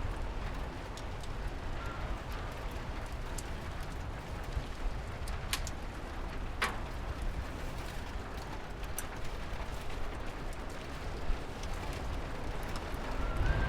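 Steady rain pattering, with scattered sharp drip ticks and a low rumble underneath.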